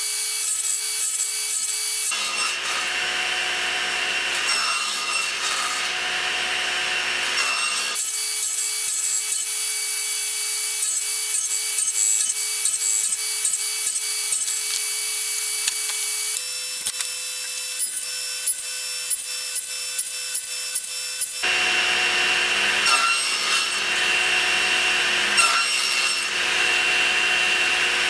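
SawStop table saw running and cutting a series of closely spaced kerfs into a small board on a crosscut sled. The sound comes in several stretches that change abruptly a few times.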